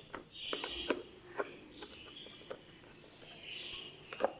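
Scattered light clicks and scrapes of hand work on a power junction box, with a sharper click near the end, consistent with its four cover screws being tightened. Faint high chirping runs underneath.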